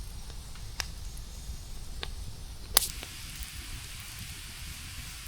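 Wood fire crackling: three sharp pops, the loudest near the three-second mark, over a low steady rumble.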